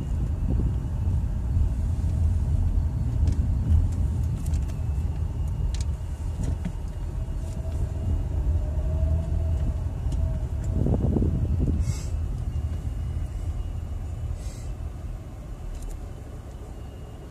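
Low rumble of a car's engine and tyres heard from inside the cabin as it drives slowly, growing quieter near the end as the car slows. Two brief scratchy sounds come late on.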